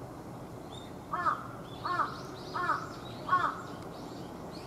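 A crow cawing four times, evenly spaced about two-thirds of a second apart.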